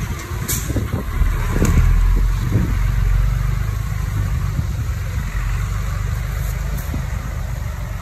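Komatsu D20P mini bulldozer's diesel engine running, swelling briefly about a second and a half in and then holding steady, with a couple of metallic clanks.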